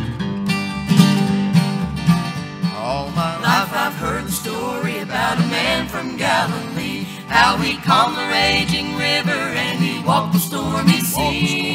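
Bluegrass gospel band: acoustic guitars strummed over an upright bass plucking steady low notes, with several voices coming in singing together about three seconds in.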